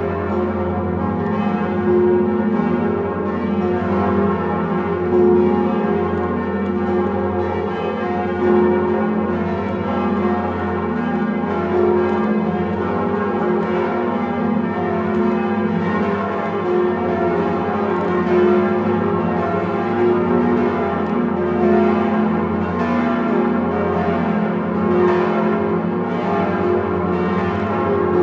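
The swinging bells of Notre-Dame de Paris cathedral pealing together in the full Grand Solennel ringing, heard from inside the belfry. Many bells' strokes overlap into one continuous dense ringing, swelling every second or two.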